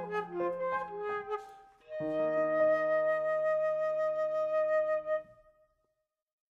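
Transverse flute and piano duo playing a closing passage: quick repeated piano notes under the flute, a short pause, then a final held chord with the flute sustaining a long note. The chord stops a little past halfway through, and the flute note fades out just after it.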